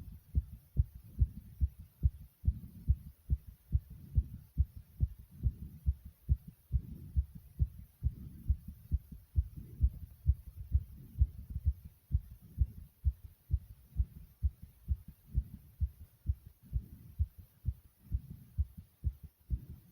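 Human heartbeat, fast and regular, as a steady run of short low thumps. The heart rate is raised from exertion just after about 60 jumping jacks.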